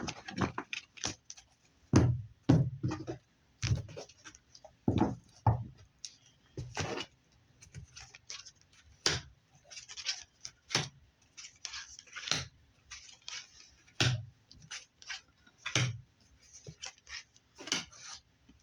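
A tarot deck being shuffled and handled by hand: an irregular run of sharp card slaps and snaps with softer brushing of cards between them.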